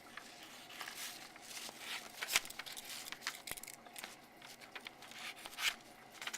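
Dull pocketknife blade drawn through a sheet of paper in a cut test. It tears and crinkles the paper rather than slicing it cleanly, in several separate rasping strokes: the blade is badly in need of sharpening.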